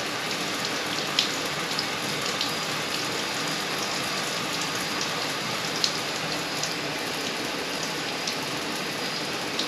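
Water from the bathtub shower running steadily and spraying onto the tub, with a few faint sharp taps.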